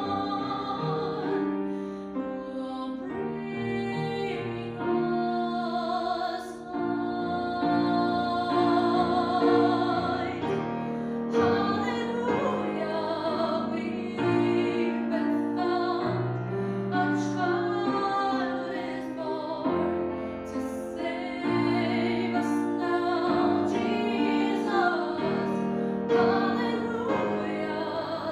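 A female soloist singing with vibrato, accompanied by a grand piano.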